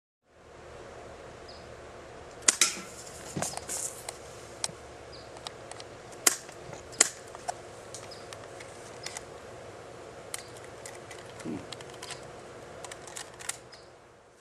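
BB guns firing repeatedly at shaken soda cans: a long, irregular series of sharp pops and cracks, loudest a few seconds in and again around the middle, over a steady hiss.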